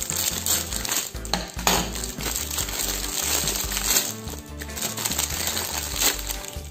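Clear plastic packaging crinkling and rustling as it is pulled open and thin plastic target cards are slid out, with light clicks of the cards knocking together.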